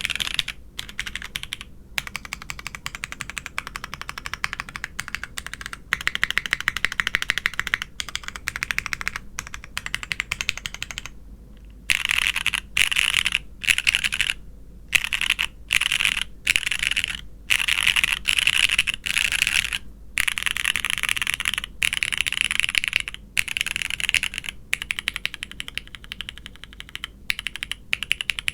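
Keys being typed on a custom mechanical keyboard with broken-in Cherry MX Black linear switches, an ABS plate and GMK doubleshot ABS keycaps: a fast run of clacking keystrokes. About halfway through, the typing breaks into short half-second bursts with brief pauses between them.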